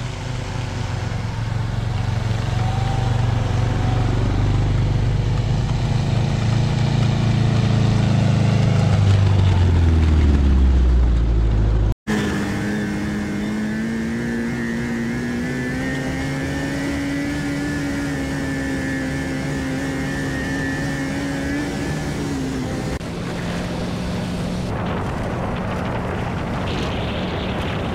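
Vehicle engines running while driving, in separate clips joined by hard cuts. A low engine drone rises in pitch and then sinks before cutting off abruptly about twelve seconds in. It is followed by a steadier engine hum whose pitch wavers slowly, and which settles to an even hum near the end.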